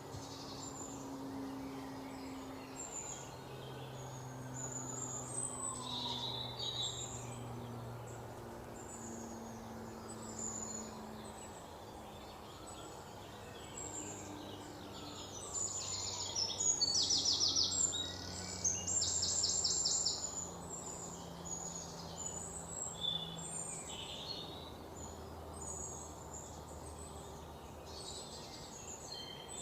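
Birds chirping and calling over a steady hiss, with a loud rapid trill about 16 to 20 seconds in, over soft low held tones that change pitch every few seconds.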